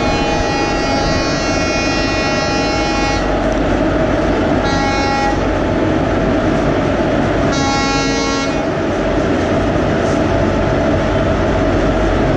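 Indian Railways electric locomotive horn sounding three times: a long blast of about three seconds, then two short blasts. Under it is the steady hum of a locomotive standing at the platform.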